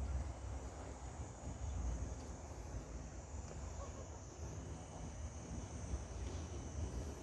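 Outdoor ambience made up of a low, uneven rumble of wind on the microphone and a faint steady high hiss.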